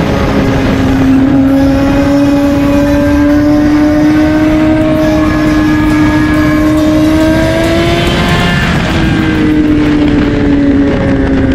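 Kawasaki ZX-10R inline-four engine running at high revs under way, heard over heavy wind rush on the microphone. The engine note climbs slowly, breaks off briefly a little past eight seconds in, then resumes and eases down.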